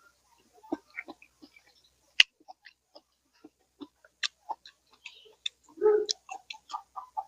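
Close-up eating sounds: scattered wet clicks and smacks of a person chewing spicy seafood papaya salad, with one sharp click about two seconds in and a fuller, louder burst around six seconds.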